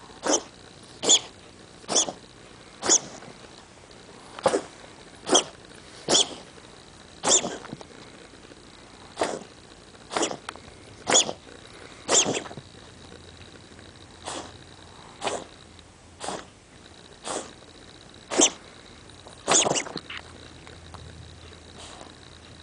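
A pet animal coughing repeatedly: a long series of short, sharp hacks, about one a second, some coming in quick pairs.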